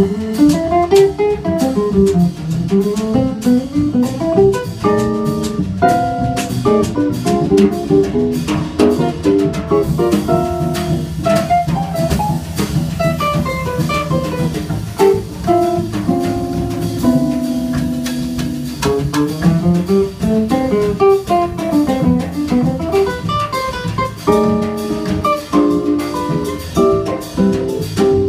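Instrumental samba played live by a trio of nylon-string acoustic guitar, cello and drum kit, the drums keeping time with quick cymbal ticks that thin out after about ten seconds.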